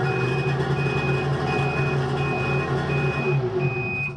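Ski-Doo 800 E-Tec two-stroke twin running at about 2,000 rpm in its summer-storage oiling mode, with a high beep repeating about every three-quarters of a second. Near the end the engine dies away as the storage process completes.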